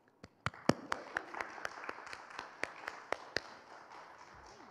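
Audience applauding, with sharp, loud hand claps close to the microphone from one person at the lectern. The applause thins out towards the end.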